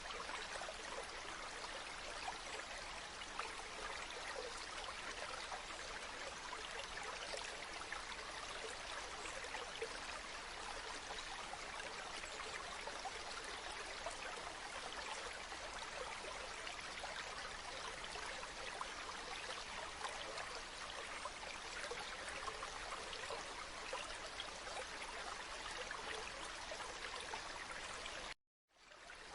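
River water flowing steadily over stones, an even rushing and babbling. Near the end it cuts out suddenly for about half a second, then fades back in.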